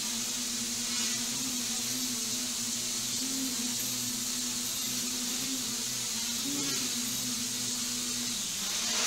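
Quadrotor with T-Motor AIR2213 920 kV motors and propellers cut down to 7.5 inches running: a steady motor hum with a strong high propeller hiss, its pitch wavering slightly a few times.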